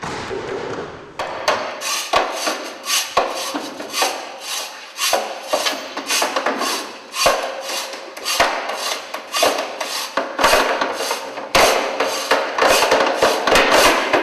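Rapid wooden knocking and banging, about three or four sharp strikes a second with some scraping between them, as wooden stage blocks and boards are struck and moved by hand; the strikes come thicker and louder near the end.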